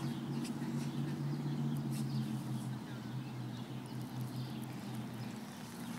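A steady low hum that fades out about five seconds in, with faint light scuffing and crunching of dogs' paws on snow as they play.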